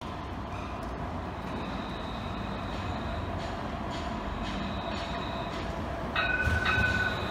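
Luas light-rail tram approaching on street track: a steady rumble of wheels and running gear with a faint high whine. About six seconds in, as it draws level, a louder high ringing tone starts twice in quick succession.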